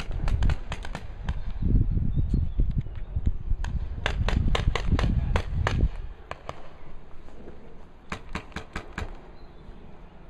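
Paintball markers firing: sharp pops in rapid volleys, densest about four to six seconds in, with another short volley of about five shots near eight seconds. Heavy low rumble lies under the first six seconds, then drops away.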